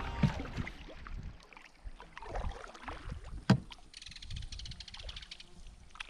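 A canoe being paddled: quiet water sounds and scattered light knocks, with one sharp knock about three and a half seconds in.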